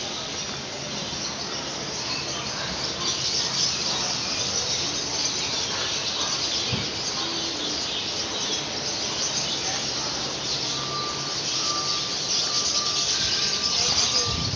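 A dense, steady din of many small caged birds chirping and squawking together, pitched high. About three-quarters of the way through, a thin, repeated short whistle-like tone joins in.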